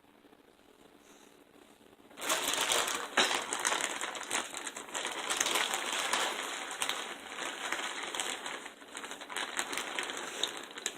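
Near silence, then from about two seconds in a dense, steady crinkling and crackling, like something being crumpled or rubbed close to the microphone.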